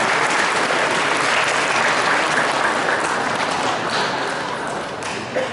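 Spectators applauding, a dense patter of clapping that gradually tapers off near the end.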